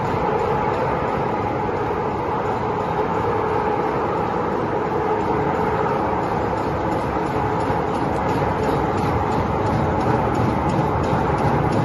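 Tyre recycling machinery running steadily: a continuous mechanical din with a fairly constant hum, and faint rapid ticks in the second half.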